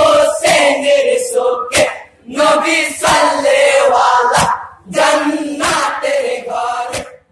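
Group of men singing a Bengali jari marsiya lament together in short phrases, with a sharp hand clap about every two and a half seconds keeping time, three in all.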